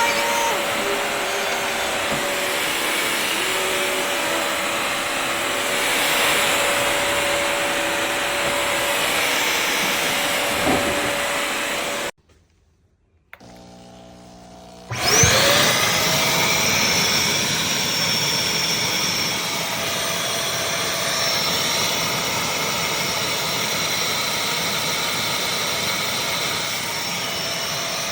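Bissell CrossWave HydroSteam Pet wet-dry vacuum mop running steadily. It cuts off abruptly about halfway through, and after a short silence its motor starts up again with a rising whine and settles back to a steady run.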